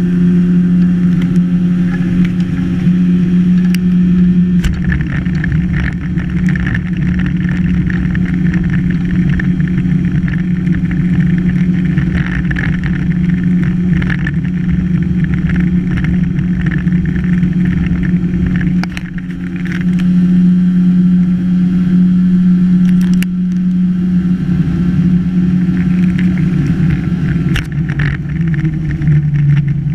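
Outboard motor pushing an aluminium jon boat along, running steadily at cruising speed. There is a short dip in loudness about two-thirds of the way through, and the engine's pitch drops near the end as it slows.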